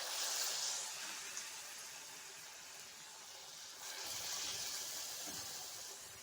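Batter-coated banana-and-semolina snack pieces sizzling as they deep-fry in hot oil, a steady high hiss that swells again about four seconds in.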